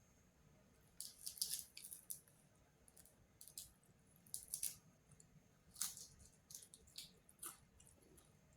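A cat eating: faint, short clicking and crunching mouth sounds in irregular clusters, starting about a second in.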